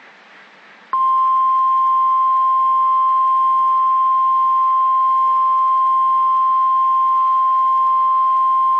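NOAA Weather Radio 1050 Hz warning alarm tone: one steady, loud, high beep that starts about a second in and holds, over faint radio hiss before it. The tone marks an urgent warning-level broadcast, here sent ahead of a severe thunderstorm statement.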